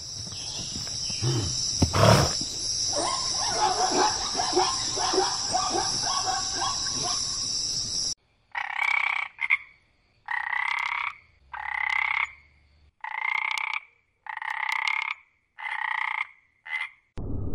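A frog calling in a regular series of about seven short croaks, evenly spaced a little over a second apart. This follows some eight seconds of a steady high-pitched ringing with scattered short calls and a single knock about two seconds in.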